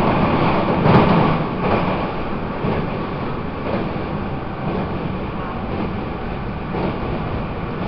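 Interior running sound of a Taiwan Railways EMU800 electric commuter train: a steady rumble and hiss of wheels on rail and running gear, with a knock about a second in.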